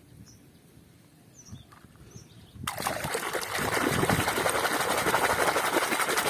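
Water starts running and splashing steadily over muddy plastic toys as they are washed, coming in suddenly about two and a half seconds in after a quiet stretch with a few faint high chirps.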